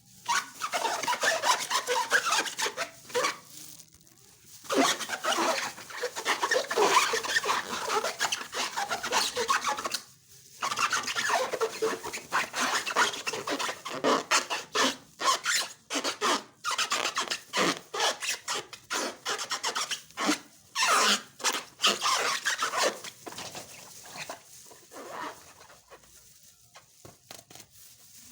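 Slime being squished and stretched by hand, giving sticky, crackling clicks in bursts with short pauses; it grows quieter near the end.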